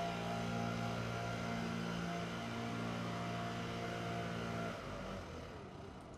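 Leaf blowers running steadily with an even engine drone; about three-quarters of the way through the nearer blower's engine note drops away, leaving fainter blower noise.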